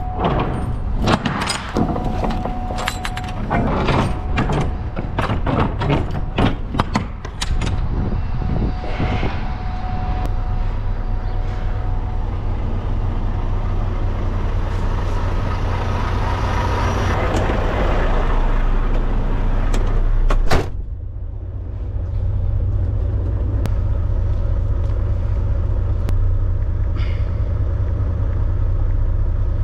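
Clanks and knocks from handling a semi-trailer's swing doors and latch gear, over a steady diesel idle of a Volvo semi truck. About two-thirds of the way through, a door shuts with a sharp bang, and the idle then carries on steady and muffled, heard from inside the truck's cab.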